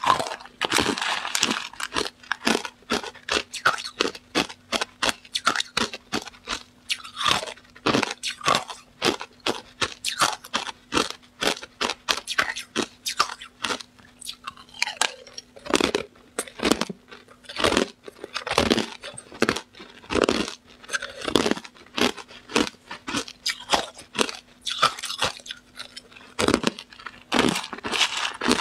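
Hard ice cubes being bitten and chewed close to a clip-on microphone: a dense run of sharp, loud crunches, several a second. A faint steady hum runs underneath.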